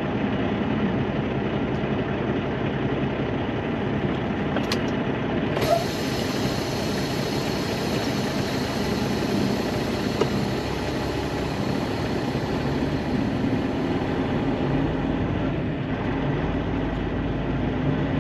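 Semi truck's diesel engine running steadily with a low drone. A high hiss joins suddenly about six seconds in.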